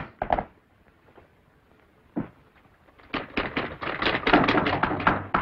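A couple of knocks at the start and another about two seconds in, then a manual typewriter typing, with rapid key strikes from about three seconds in.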